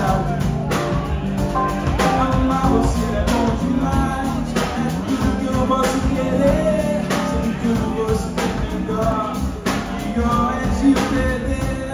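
Live band playing electric guitar, bass guitar and drum kit, with a man singing over it.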